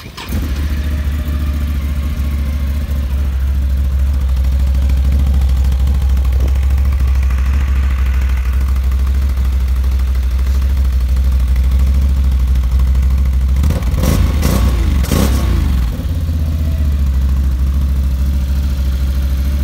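Can-Am Renegade 1000R ATV's Rotax V-twin engine catching about a third of a second in, then idling steadily with a deep low hum. There is a short rough, uneven stretch around fourteen to sixteen seconds in.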